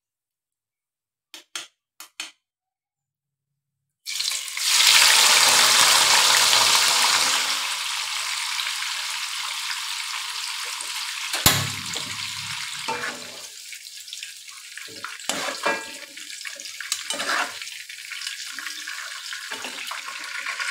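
Three short clicks, then, about four seconds in, tofu cubes start deep-frying in hot oil in a wok: a loud sizzle, strongest for the first few seconds, then settling to a steady sizzle. A sharp knock comes about halfway through, and scattered clicks follow later.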